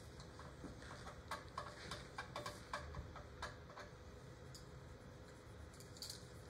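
Faint scattered clicks and taps over quiet room noise, bunched together in the first half and thinning out after.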